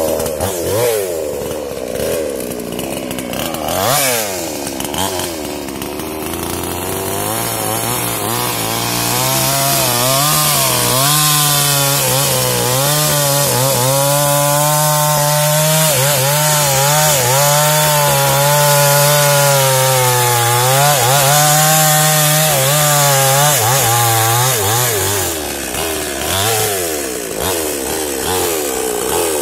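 Small New Paxton two-stroke chainsaw cutting into the trunk of a standing jengkol tree. The engine revs unevenly for the first several seconds, then is held at high revs under load, its pitch wavering as the chain bites. There is a brief dip in revs near the end.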